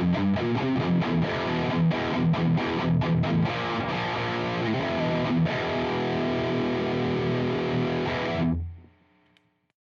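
Electric guitar through a JOYO Dark Flame distortion pedal (a Revv G3 clone) playing a riff of quickly repeated picked chords, then letting one distorted chord ring. About two-thirds of the way through, the chord is cut off and a faint tail dies away.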